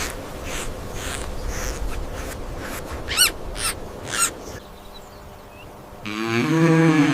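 Birds chirping with short calls about twice a second, some of them quick rising chirps. Near the end comes a louder call about a second long, low and voice-like, from an animal.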